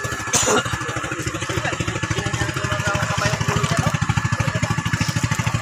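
Small motor on an outrigger fishing boat running steadily at idle, with an even, rapid chugging beat. A brief clatter comes just after the start.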